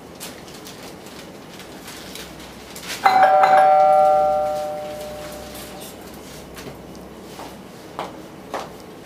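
A doorbell chime rings about three seconds in, its tones dying away over a couple of seconds. Near the end come a few high-heel footsteps on a tiled floor.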